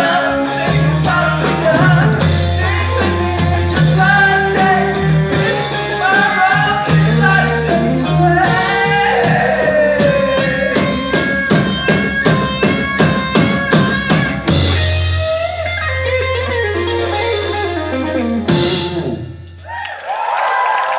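Live rock band (lead vocals, piano, electric guitar, bass guitar and drum kit) playing the close of a song, with a run of steady, evenly spaced drum hits midway and a final held chord over a sustained bass note that cuts off just before the end. Cheering and applause begin right at the end.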